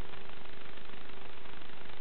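Steady hiss of static from an analog FPV video link's audio channel, recorded raw, with a constant low hum tone running through it.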